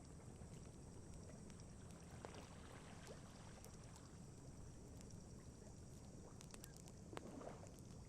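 Faint campfire crackling, a few sharp pops scattered through, over a low steady wash of lake water lapping.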